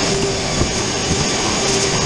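Wet/dry shop vacuum running steadily with a held whine as its hose is worked over the floor.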